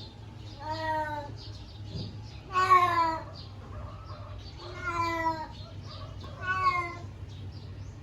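A Burmese cat meowing four times, roughly every two seconds, each meow drawn out and falling in pitch; the second is the loudest.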